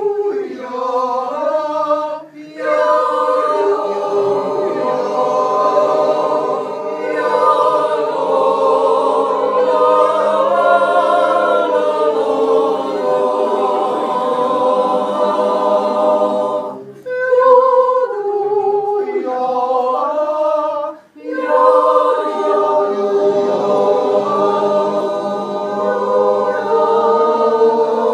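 Mixed group of men and women singing an Appenzell yodel a cappella in held, sustained chords. The singing pauses briefly between phrases about two seconds in, and twice more past the middle.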